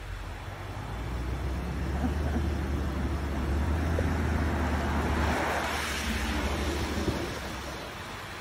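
A BMW SUV driving past close by: its engine and tyre noise swell as it approaches, peak about five to six seconds in, then fade as it goes by.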